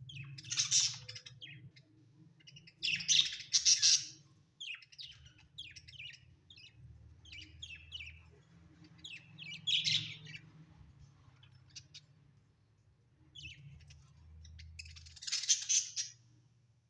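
Budgerigars chirping and chattering in several loud bursts, with softer chirps in between.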